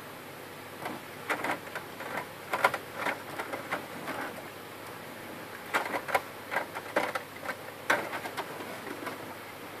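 Metal tweezers clicking and scraping against a plastic part on a shaft in a laser printer's side frame as it is pried loose. The clicks come in two runs of quick, irregular strokes: one starting about a second in, the other near six seconds in.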